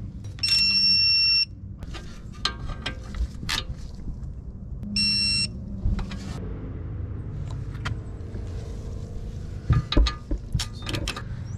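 Digital torque wrench beeping twice, a beep of about a second then a shorter one some four seconds later, signalling that the caliper bracket bolt has reached the set torque of 75 newton metres. Light clicks of the wrench and socket on the bolt, and a louder metallic knock near the end as the socket goes back onto the bolt.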